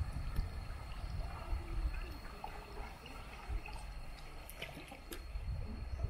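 River water gurgling and trickling around a bamboo raft, with a few light knocks about four and a half to five seconds in.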